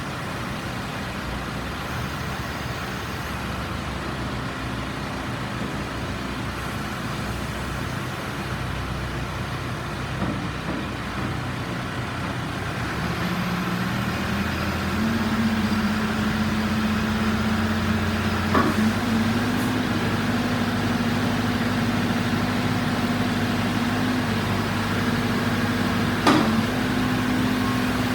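CAT 426C backhoe's four-cylinder turbo diesel engine running steadily; about halfway through its engine speed steps up and then holds at the higher speed. Two short sharp knocks come later.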